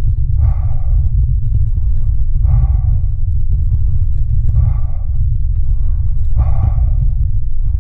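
Steady low rumble of wind buffeting the camera microphone and bicycle tyres rolling over a rutted dirt track, with a short exhale from the rider about every two seconds.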